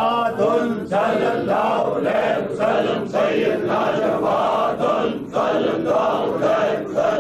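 Devotional chanting by men's voices, a short phrase repeated in a steady rhythm about every two seconds.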